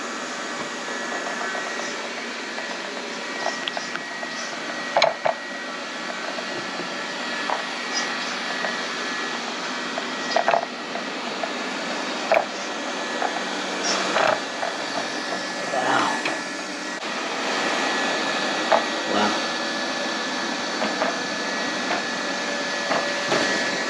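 Lefant M210B robot vacuum running steadily, a whirring hum with a steady high tone, broken by a few short knocks and clicks.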